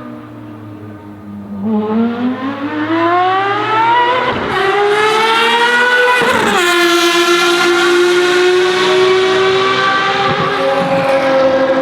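Ferrari FXX Evo's V12 racing engine accelerating hard: the note climbs steadily in pitch, breaks briefly on quick upshifts about four and six and a half seconds in, then runs on loud and high-revving.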